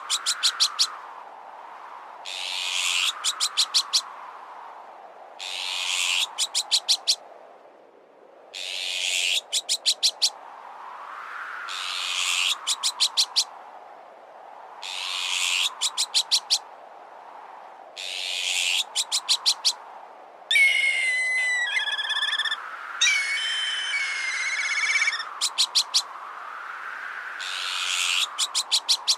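Bird-repellent sound mix: a harsh, high bird call repeats about every three seconds, each one ending in a quick run of five or six sharp clicks, over wind noise that swells and fades. From about two-thirds in, a wavering whistled call, like a black kite's, comes in twice.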